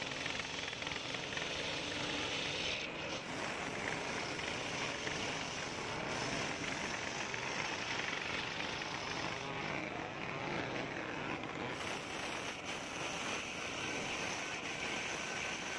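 Homemade table-mounted circular saw ripping a coconut-wood plank lengthwise, the blade cutting steadily through the wood with an unbroken, even noise.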